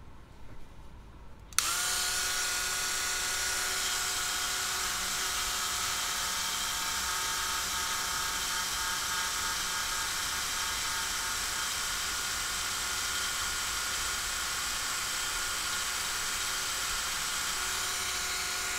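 Black+Decker rotary tool switched on about a second and a half in and running with a steady high whine, spinning a short length of PLA filament against the joint between two 3D-printed pieces to friction-weld them.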